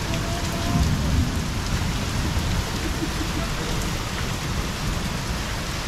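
Steady downpour of rain.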